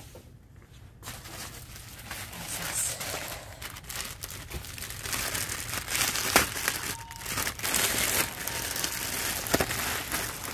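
Thin clear plastic packaging crinkling and rustling as hands pull a bag open, with many small crackles and clicks; the handling gets busier and louder about halfway through.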